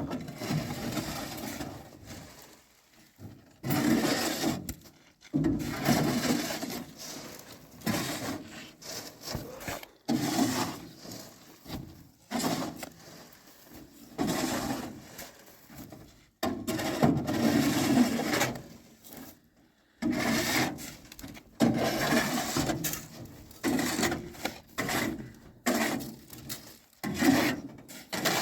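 Repeated rough scraping or rubbing strokes, irregular, about one a second with short pauses between them.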